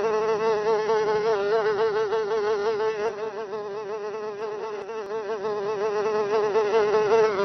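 A fly buzzing: one continuous buzz with a quickly wavering pitch, a little quieter in the middle.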